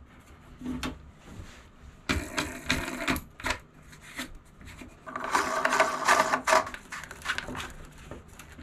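Handling noise of a brass instrument panel and its gauges on a wooden tabletop: scattered clicks, taps and knocks, with a busier stretch of clatter in the middle.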